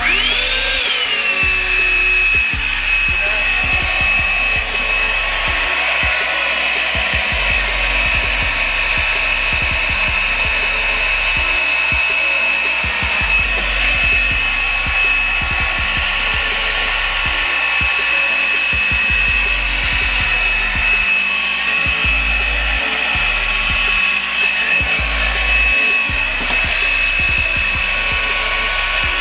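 Revlon hot-air brush blow dryer switching on: its motor whine swoops up and settles within the first second or so. It then runs with a steady high whine over a rush of blown air.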